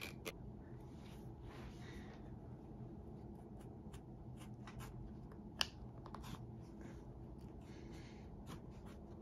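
Small hand knife cutting and scraping into a leather insole being prepared for hand-welting: faint, irregular short strokes, with one sharp click about five and a half seconds in.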